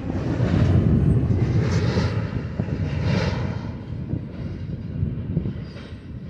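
Double-stack intermodal freight train rolling away on the rails, a low rumble of wheels and cars with passing swells of hiss, fading as the tail end recedes.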